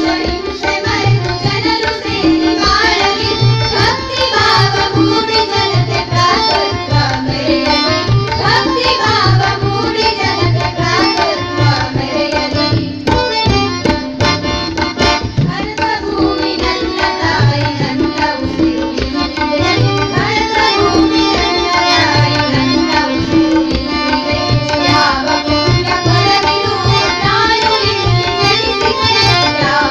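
A group of women singing a Kannada patriotic song in unison, accompanied by harmonium and tabla. The tabla's bass drum keeps a steady, repeating rhythm under the melody.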